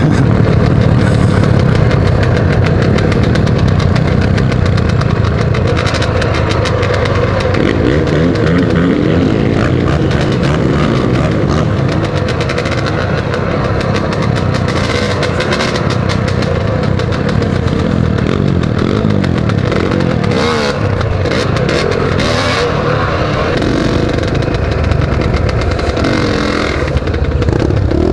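Pit bike's single-cylinder engine running under way, its pitch rising and falling as the throttle is worked over a bumpy dirt track.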